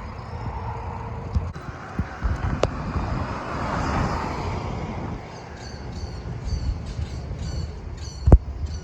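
Outdoor background rumble like road traffic, with a vehicle passing as the noise swells and fades over a few seconds. After that comes a run of short high chirps, and a single sharp knock near the end.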